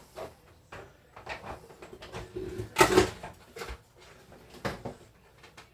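Clicks and knocks of plastic parts being handled as an electronic keyboard's casing is taken apart, with the loudest clatter about three seconds in.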